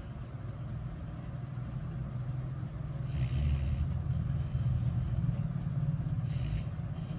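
Sleeping beagle snoring, a low fluttering rumble with a louder, airier breath about three seconds in and again near the end.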